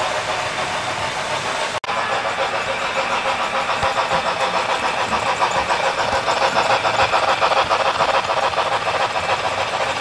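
Sound decoder of an HO-scale Union Pacific Big Boy 4-8-8-4 model playing steam-locomotive exhaust chuffs through its small speaker: a fast, even beat as the model runs. A brief dropout about two seconds in.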